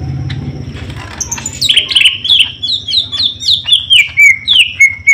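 Caged green leafbird (cucak ijo) calling: a rapid, loud series of whistled notes, each sliding down in pitch, about three a second, starting about a second and a half in.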